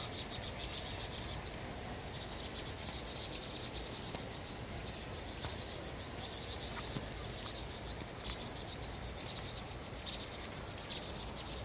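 A group of vinous-throated parrotbills giving high, fast, buzzy chattering alarm calls in repeated bursts with short breaks. These are distress calls at a Eurasian jay attacking them, which the observer takes for the jay preying on their young.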